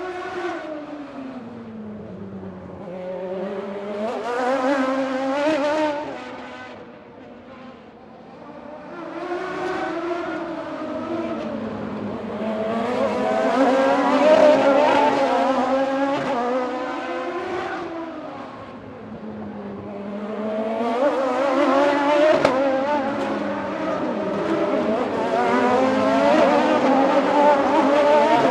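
MotoGP racing motorcycles at high revs, several engines overlapping. Their pitch repeatedly drops as they slow and then climbs again as they accelerate, and the level swells as groups of bikes pass about four times.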